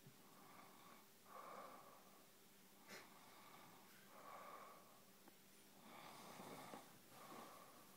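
A person passed out asleep, snoring faintly: a short rasping breath about every second and a half, with a small click about three seconds in.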